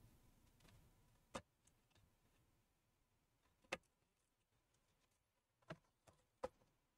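Near silence broken by about five small, sharp clicks as gloved fingers handle the LCD panel's 40-pin display cable and connector.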